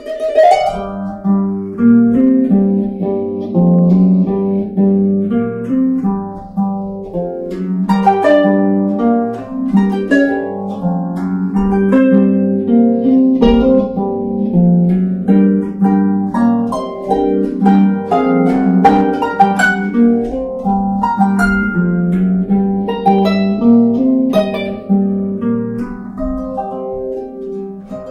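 Harp music: a continuous stream of plucked notes, a melody running over lower repeated notes.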